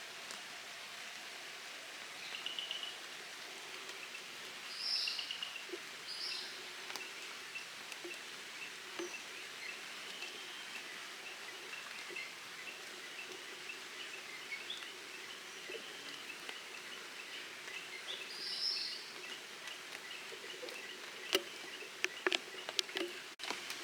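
Quiet rural outdoor ambience: a steady faint background with a few short bird chirps scattered through it, and several sharp clicks near the end.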